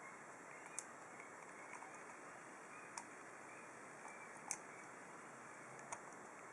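Faint, sharp clicks of small lock pins and springs being taken out of a padlock core with a pick and set down, four of them a second or two apart.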